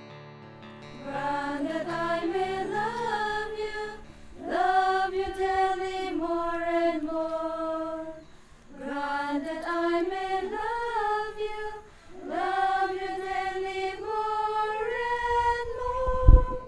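Background music: female voices singing a slow melody in four long phrases with short breaks between them. A low thump sounds just before the end.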